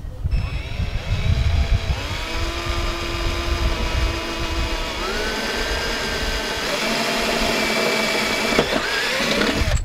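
Cordless drill running under load, drilling a hole through a sailboat's transom: a steady motor whine that steps up in pitch a few times as the bit works through, then stops.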